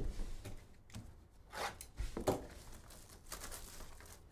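Card box and packaging being handled on a table: a sharp knock at the start, then scattered light taps and clicks.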